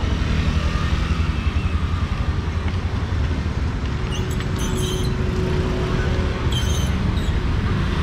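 Street traffic: a steady rumble of passing motor vehicles, with a few brief high clicks and clatters in the second half.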